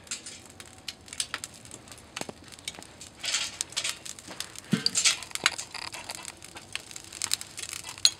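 Hot charcoal poured from a chimney starter into a metal smoker drum: the coals clatter and crackle in a long string of sharp clicks, thickest about three seconds in and again about five seconds in.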